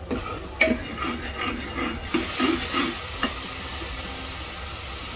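Steel ladle stirring and scraping thick tomato-onion masala in an aluminium pressure cooker, with a few sharp clicks against the pot, over a steady sizzle of the masala frying in oil. The stirring stops about three seconds in, leaving only the sizzle.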